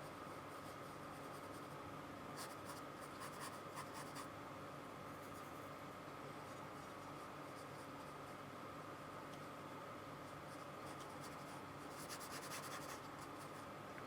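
Paintbrush scrubbing acrylic paint onto canvas: faint scratchy strokes in short runs, a few seconds in and again near the end, over a low steady hum.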